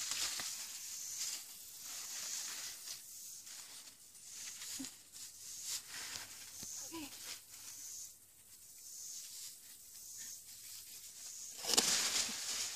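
Large sunflower leaves and stalks rustling and scraping as a person handles the plants to harvest a seed head, with a louder rustle near the end.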